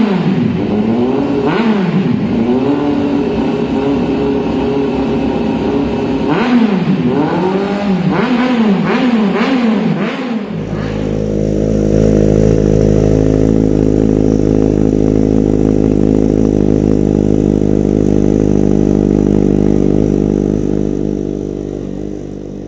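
Kawasaki Z800's inline-four engine revved in repeated blips, the pitch rising and falling several times. About ten seconds in it settles to a steady, louder running speed, which fades out near the end.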